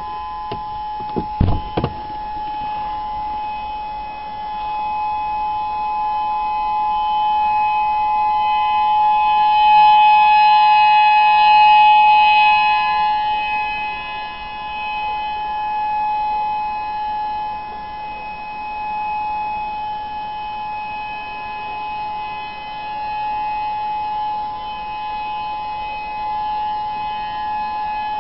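Whelen 3016 electronic outdoor warning siren sounding a steady, unwavering tone for its monthly test. The tone swells louder about ten seconds in, then eases back. A few low thumps come about a second in.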